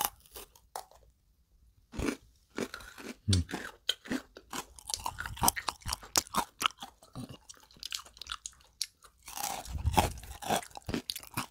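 Close-up crunching and chewing of white-chocolate-coated freeze-dried strawberry balls. The hard dried strawberry inside crackles in a dense run of crisp crunches that begins about two seconds in.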